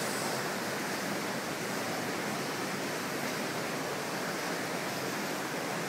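Steady rush of churning and running water from a public bath's jet baths.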